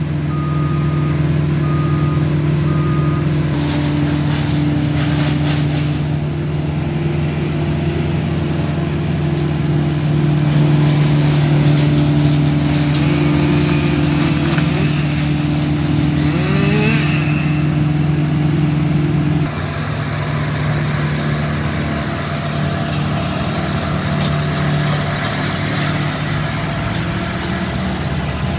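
A large engine running at a steady speed. Three short reversing beeps sound in the first few seconds. The engine note drops and eases about two-thirds of the way through.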